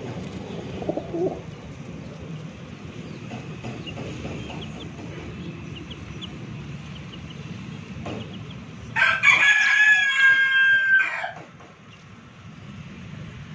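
A rooster crows once, a single drawn-out call of about two seconds starting about nine seconds in, over a low steady rumble.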